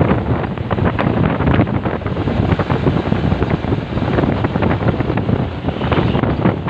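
Wind buffeting the microphone while riding in the open cargo bed of a moving small pickup truck, over the truck's running and road noise.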